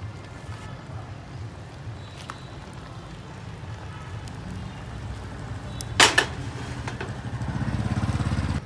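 Low engine rumble of a nearby vehicle, swelling over the last second and a half into a fast, even pulsing, then cut off abruptly. About six seconds in, one sharp clatter stands out above it.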